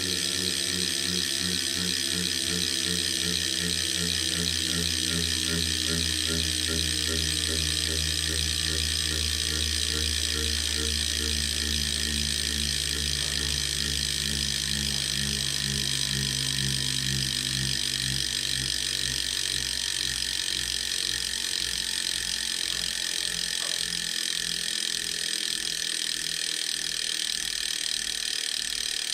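Mechanical grinding noise from a device: a steady high hiss and whine over a low rhythmic pulsing that gradually slows.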